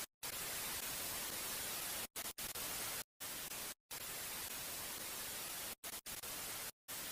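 Static hiss, like a white-noise video-effect sound, cut by short sudden dropouts into silence about eight times.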